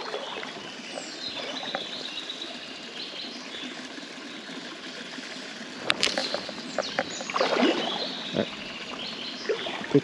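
Shallow river running over stones, a steady watery hiss. A sharp click comes about six seconds in, followed by a couple of seconds of brief, irregular knocks and rustles.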